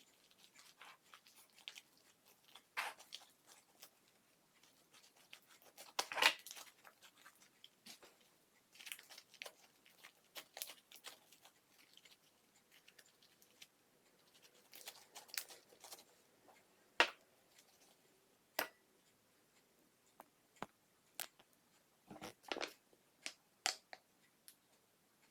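Faint, scattered handling noises of craft materials: short clicks and brief crinkling, rustling sounds at irregular intervals with quiet gaps between.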